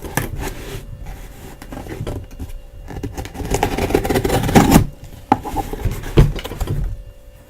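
A cardboard shipping box being opened by hand: cardboard and packing material rubbing, scraping and rustling, loudest a little past the middle, then two sharp knocks as the box is handled.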